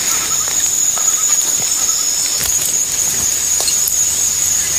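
A steady high-pitched insect drone, with small clusters of faint bird chirps now and then.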